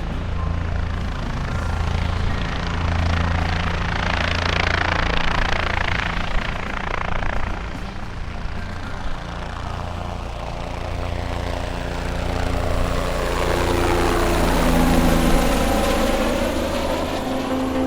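Helicopter noise: a steady low rotor thrum under a rushing hiss that swells and sweeps twice, once about five seconds in and again near the end, where sustained music tones come in.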